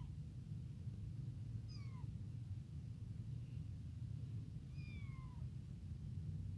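Young abandoned kitten meowing: two short high meows about three seconds apart, each falling in pitch, with a fainter one between them.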